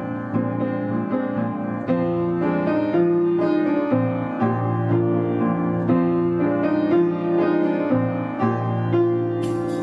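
Slow instrumental background music led by piano, with a new note or chord about every second. A brighter, fuller sound comes in near the end.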